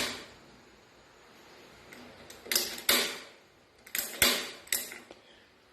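Gas stove's knob and spark igniter clicking: one click at the start, then several more in small groups, with the burner not lighting because the gas bottle is not turned on enough.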